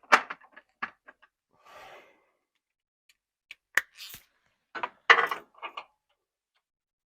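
Hand tools working a rusty 10 mm nut on a starter solenoid's cable stud: irregular metallic clicks and clacks of a wrench and socket, with a short scrape about two seconds in and a quick run of louder clacks past the middle.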